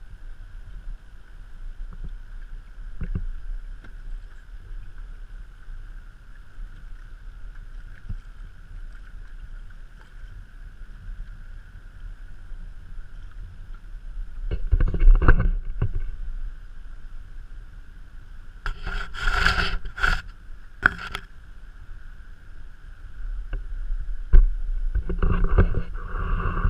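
Kayak being paddled on open water: water sloshing against the hull over a steady low rumble, with three louder spells of paddle splashing, about halfway through, past two-thirds of the way and near the end. A faint steady hum sits underneath.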